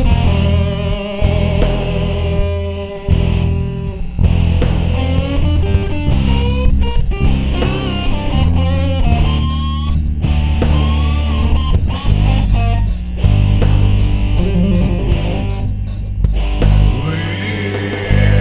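Blues-rock music: an electric guitar playing bending lead lines over bass and a steady beat.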